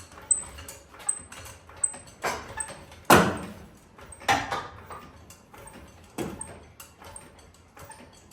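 Irregular metallic clanks and knocks, the loudest about three seconds in and another strong one just after four seconds, with quieter knocks in between.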